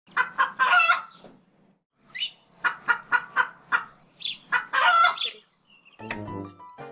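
A chicken clucking: a run of short, sharp clucks ending in a longer drawn-out call, heard twice in the cackle pattern. Music starts near the end.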